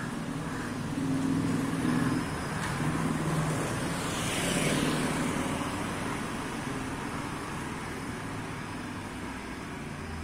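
Motor scooter engine running as it passes close by and rides off, loudest in the first five seconds, then fading.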